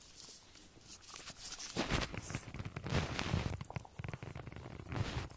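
A pug–Jack Russell cross dog mouthing and knocking a rubber Kong Original toy about to work cheese out of it: a quick, irregular run of knocks, chewing and scrabbling starting about two seconds in.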